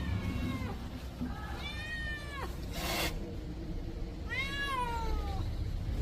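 Orange tabby cat meowing three times about two seconds apart, each call dropping in pitch as it ends, with a short hiss-like burst of noise between the second and third meow.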